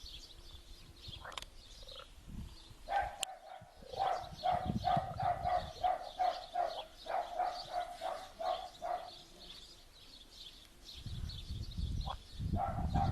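A distant dog barking repeatedly, about three barks a second for several seconds, over a steady chorus of frogs and birds. A low rumble comes in near the end.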